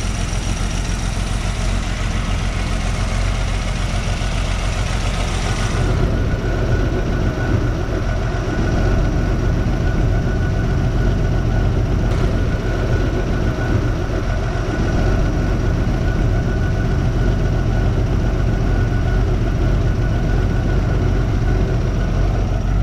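Early-1990s Toyota 4Runner engine idling steadily on its first run after an alternator replacement, with no belt squeal from the newly fitted alternator drive belt. Its sound changes about six seconds in, losing some high hiss.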